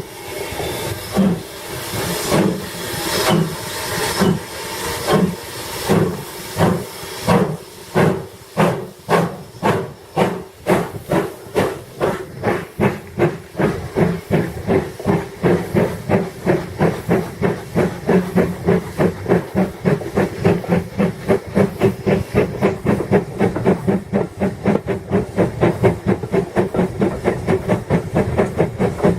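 Live steam model locomotive chuffing as it gets under way, its exhaust beats hissing at about one a second at first and quickening steadily to several a second.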